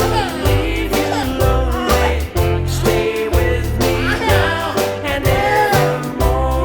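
Upbeat background music with a steady drum beat and a bouncing bass line.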